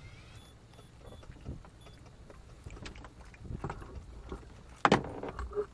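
Scattered knocks and bumps of gear on a small boat: a few light ones, then the loudest cluster near the end, over a low rumble.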